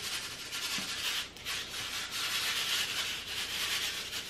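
A steady, grainy rustle of small seeds being shaken out of paper seed packets onto trays of damp potting soil, with light crinkling of the packets.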